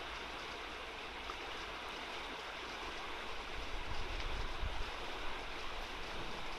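Shallow river water rushing steadily over a riffle. From about four seconds in, low rumbling gusts of wind hit the microphone.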